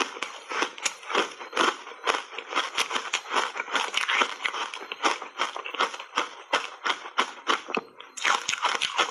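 Chewing a mouthful of matcha-powder-coated dry foam reshaped ice: quick crisp crunches and crackles, several a second, easing briefly just before the end.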